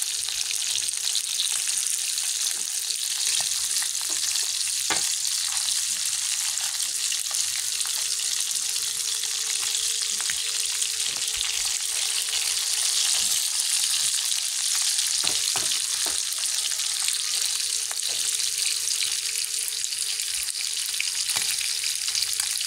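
Whole small cá chốt catfish frying in hot oil in a pan, a steady sizzle for crisp frying. A few scattered clicks and pops sound over it, with a faint steady hum underneath.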